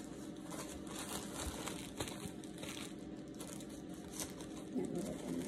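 Thin disposable plastic gloves crinkling and rustling in irregular crackles as they are pulled on and worked over the fingers.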